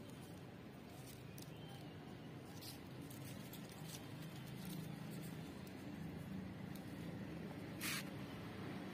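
Faint steady low hum of background ambience with a few light rustles of tomato plant leaves being handled, and one short brushing sound about eight seconds in.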